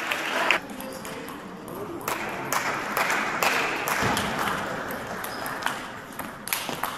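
Table tennis rally: the plastic ball clicking off the rackets and table about twice a second.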